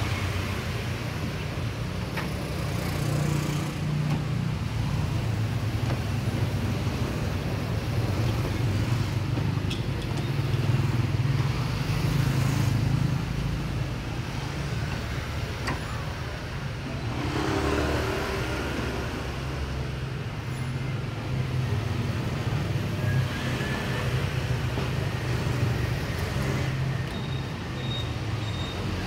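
Steady low engine rumble of street traffic, swelling briefly now and then as vehicles pass.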